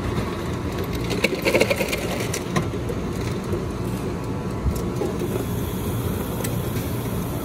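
Frozen-drink slush dispenser with a steady low hum while its push lever is held and slush runs into a paper cup; a short clatter about one and a half seconds in.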